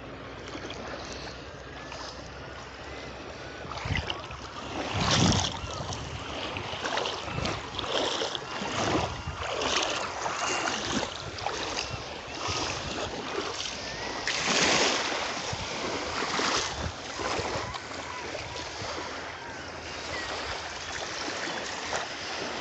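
Small waves washing in on a bay shore, with wind on the microphone; the wash swells several times, loudest about five and fifteen seconds in.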